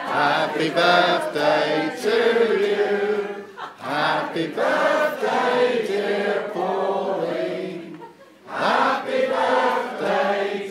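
A roomful of people singing together in chorus, holding long notes, with a brief break about four seconds in and another about eight seconds in.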